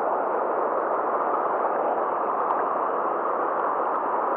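Steady rush of turbulent, foaming water churning below a weir outflow.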